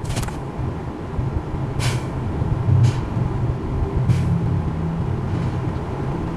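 Low, steady rumble of a car's running engine heard inside the cabin, with a few brief sharp sounds near the start and about two and three seconds in.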